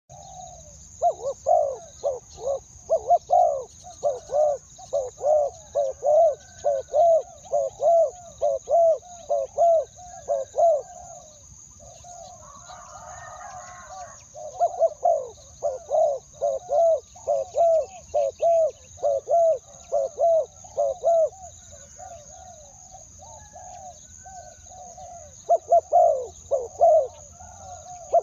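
Spotted doves cooing, a series of short repeated coos in quick runs, broken by pauses about eleven and twenty-two seconds in.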